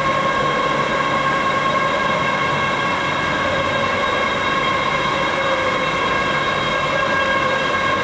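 Large LCD polarizer laminating machine running: a steady whine with several overtones over a noisy hum.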